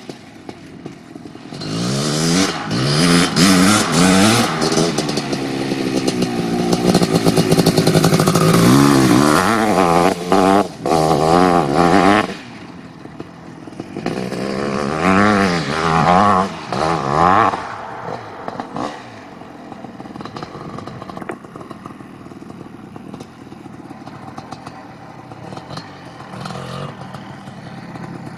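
1988 Kawasaki KX500's 500 cc two-stroke single engine, fitted with an FMF Fatty expansion chamber and DEP silencer, revving hard as the bike is ridden, its pitch rising and falling with the throttle and gear changes. About twelve seconds in it drops off, revs hard again briefly, then runs quieter at low throttle from about eighteen seconds in.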